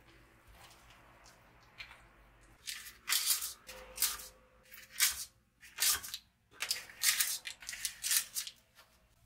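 Paper muffin liners crinkling and rustling as they are pulled apart and pressed one by one into a metal muffin tin, a quick run of short rustles starting about three seconds in. Before that, faint stirring of batter in a bowl.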